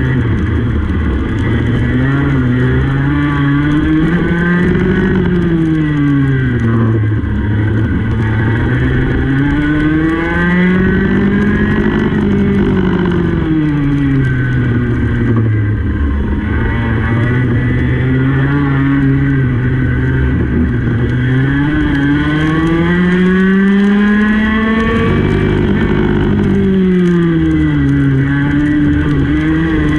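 Racing kart's two-stroke engine heard onboard at racing speed, its pitch climbing for several seconds at a time as it accelerates and dropping quickly as it slows for the corners, about four times over.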